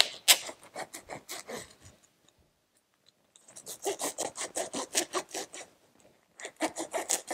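Cardboard shipping box being cut open through its packing tape: rapid, rhythmic scraping strokes in three runs with short pauses between them.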